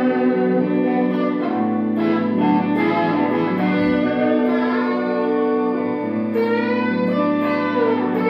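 Electric guitar played through effects pedals: long sustained notes layered over a steady low drone, with the upper notes shifting every second or two.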